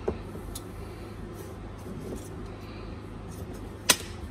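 A metal ruler knocks sharply once against a tabletop near the end, with a fainter knock at the start, over a steady low hum and soft handling noise.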